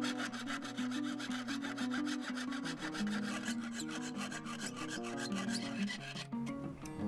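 Jeweler's saw cutting thin brass sheet along a marked circle: rapid, even back-and-forth strokes of the fine blade, stopping near the end. Background music plays underneath.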